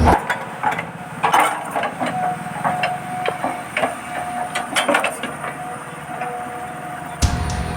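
Toy-scale RC excavators working with wooden logs: scattered wooden knocks and clatters over the thin, steady whine of their small electric motors. Background music comes back in near the end.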